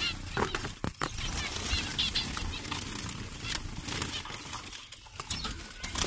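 Zebra finches fluttering their wings in their cage, mixed with rustling and several light knocks.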